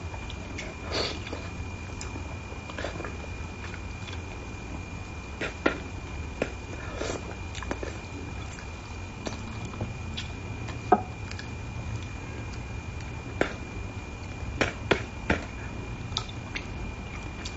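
Close-up eating sounds: chopsticks clicking and tapping against a plate while picking at braised carp, with soft chewing in between. The sharp clicks come irregularly, the loudest about eleven seconds in.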